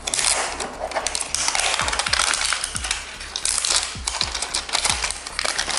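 Clear plastic shrink-wrap being torn open and peeled off a small cardboard box, crinkling and crackling continuously. A few low thuds from the box being handled come about two to five seconds in.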